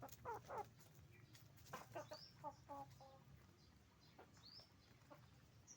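Domestic hens clucking in short runs of quick notes, with a few high, rising chirps between them.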